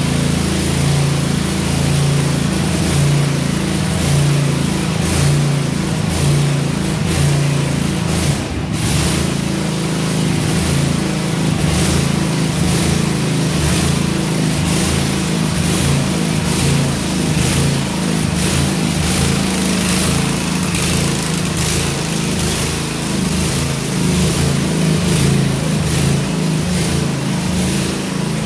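Cub Cadet RZT 50 zero-turn mower's engine running steadily, a little loud from its muffler problems. The mower is sluggish and barely wants to move under it, because the drive belt is loose.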